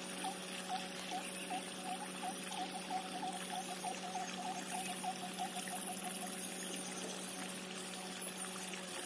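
Water pouring and splashing through the holes of a pathakattai fish trap set in a mud channel. Over it, an unseen small animal gives a string of short chirps that quicken from about one a second to several a second and stop about six seconds in.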